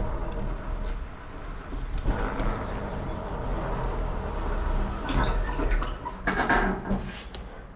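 Fat-tire electric bike on the move: wind rumbling on the microphone over a steady motor hum, with a run of knocks and rattles about five to seven seconds in.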